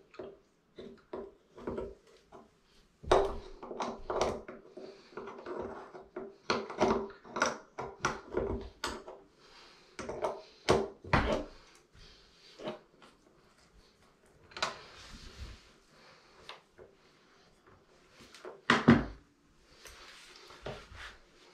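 Hand work low on a wall with a tool and a towel: a run of irregular clicks, knocks and scrapes, with a heavier thump near the end.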